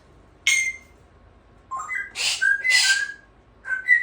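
African grey parrot whistling: a short sharp call about half a second in, then a run of short whistled notes hopping up and down in pitch, with a few more near the end.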